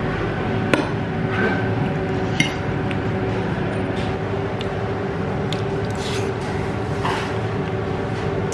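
Restaurant ambience: a steady background hum with a few light clinks of cutlery against dishes.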